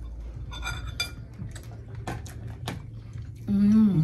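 Scattered clicks and small clatters of seafood-boil food and utensils being handled while eating, then a short hummed "mm" falling in pitch near the end.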